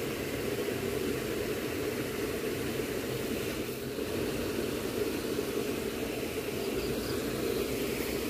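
Steady rushing noise with a low hum beneath it.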